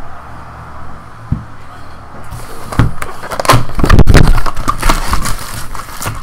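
Trading-card hobby box being opened and its foil-wrapped card packs handled: crinkling and rustling of cardboard and wrappers, starting about two seconds in.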